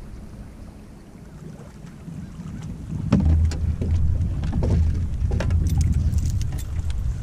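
Knocks and clunks on a small boat as the angler moves about and handles gear, over a low rumble that gets louder about three seconds in.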